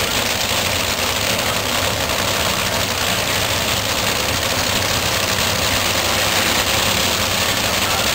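A drag-racing vehicle's engine running steadily and loud, a low even drone under a wash of noise that neither rises nor falls.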